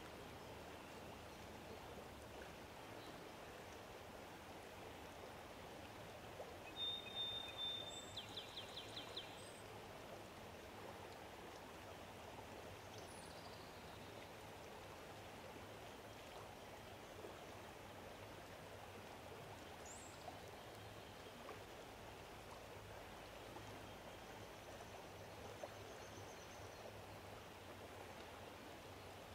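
Steady, faint rush of flowing water. About seven seconds in, a bird gives a short high whistle followed by a quick trill, and a few faint chirps follow later.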